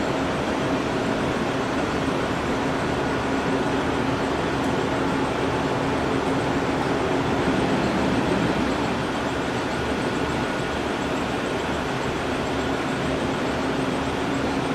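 Steady mechanical rushing noise with a constant low hum, unchanging throughout.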